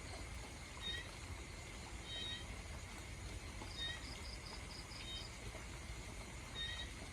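Steady rain, with short high chirping calls from a small animal coming back every second or so, including a quick run of about six pulses near the middle.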